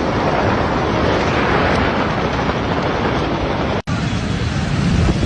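Heavy rain with wind buffeting the microphone: a dense, steady rushing noise. It drops out for an instant a little under four seconds in and comes back deeper and more rumbling.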